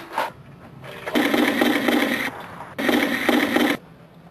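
Airsoft electric rifle firing on full auto: two bursts of about a second each, half a second apart, starting and stopping abruptly.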